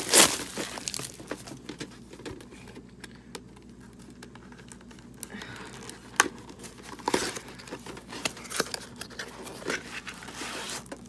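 Packaging crinkling and tearing as a white mailer is pulled open by hand, loudest in a rustle right at the start. Then scattered crackles and light clicks as a small cardboard box is handled and its flap opened.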